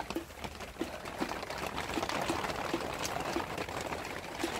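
Water running or pouring, with a steady rush and irregular small drips and plops.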